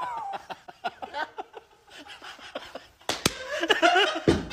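Two men laughing hard, breathy and stifled at first, with a single sharp slap about three seconds in, followed by louder bursts of laughter.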